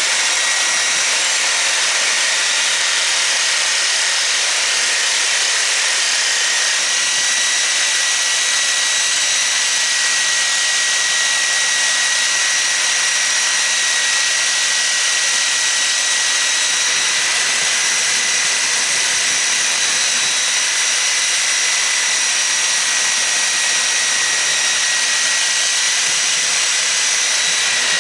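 A power tool cutting through the shaft of a hot tub pump motor, running continuously without a break, with a steady high whine over a loud hiss.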